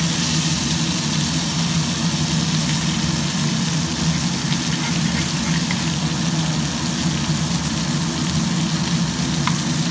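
Fish shallow-frying in hot oil in a pan, a steady sizzle, over a steady low hum, with a couple of faint clicks of a steel spatula against the pan.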